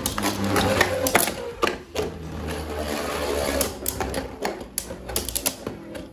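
Two Beyblade Burst tops, Guilty Longinus Karma Metal Destroy-2 and Rage Longinus Destroy' 3A, launched into a plastic stadium in a test battle. They spin with a steady whirr and clatter against each other and the stadium walls in rapid clicks for the first three and a half seconds or so, then the knocks thin out.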